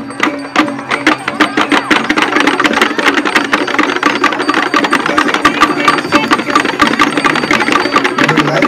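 Balinese processional gamelan playing loudly: a fast, dense run of clashing strokes over a steady low tone.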